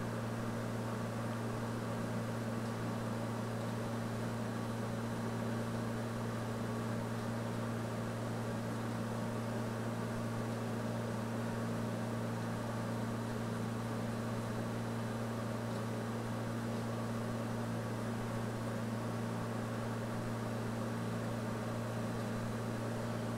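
Steady low hum under a constant hiss: background room or equipment noise.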